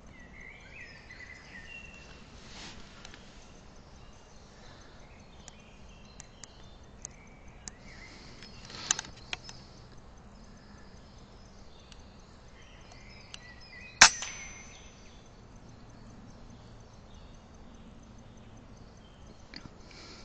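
A single sharp crack of an air rifle shot about two-thirds of the way through, the loudest sound, over a quiet outdoor background of small birds chirping. A few fainter clicks come a little before halfway.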